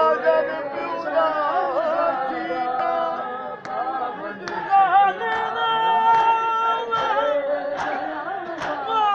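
A noha, a Shia mourning lament, chanted by men's voices without instruments in long, wavering held notes. From about halfway through it is joined by sharp slaps about once a second, typical of matam: mourners beating their chests in time.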